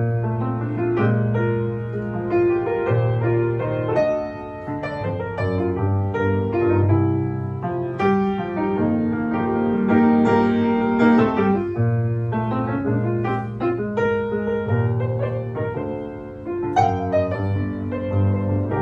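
Grand piano played solo: an instrumental break of chords and melody notes, with no singing.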